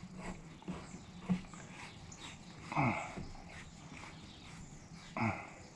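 Quiet small clicks and taps of metal parts being handled as the spool is worked into the hydraulic control valve body. There are two short vocal sounds that drop in pitch, about three and five seconds in.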